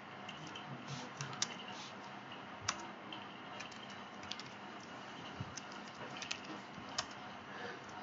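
Computer keyboard typing: irregular key clicks at an uneven pace, a few strokes sharper than the rest.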